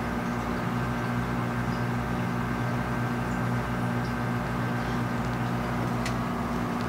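Steady low mechanical hum, with a faint click about six seconds in.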